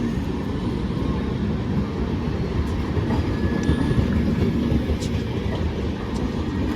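Passenger express train moving out: a steady low rumble of wheels on the rails, with faint clicks.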